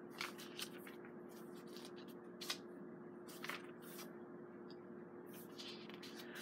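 Pages of a handmade junk journal of mixed papers being turned by hand: faint, scattered paper rustles and soft ticks, over a steady low hum.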